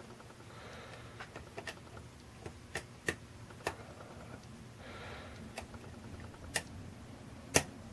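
Scattered sharp little clicks from a hook pick working the pin stacks of a Schlage Everest LFIC lock core held under tension, pins clicking as they are lifted and set. The loudest click comes near the end.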